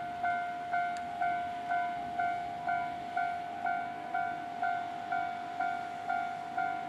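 Japanese railway level-crossing warning bell ringing steadily, about two dings a second, each ding fading before the next.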